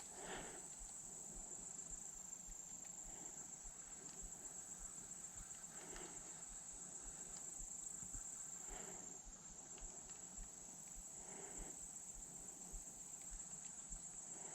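Steady, high-pitched chorus of insects, with a few soft footfalls on the bank every few seconds.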